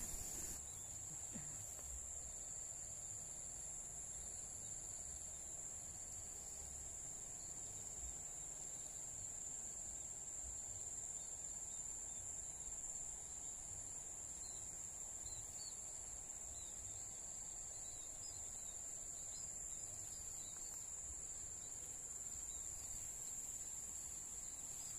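Crickets trilling in one steady, unbroken high-pitched tone, with a faint low rumble underneath.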